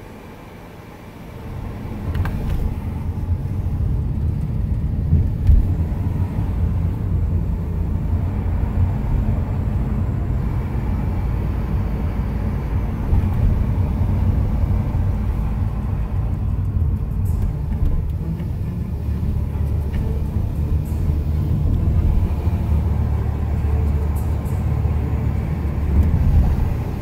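Car road and engine noise heard from inside the cabin while driving: a steady low rumble that grows louder about two seconds in and then holds.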